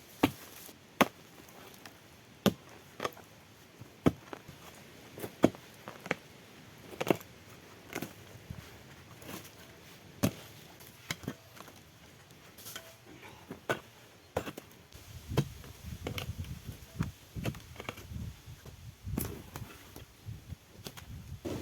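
A long series of sharp knocks on wood at an uneven pace, roughly one or two a second and varying in strength, like blows from a hand tool on timber.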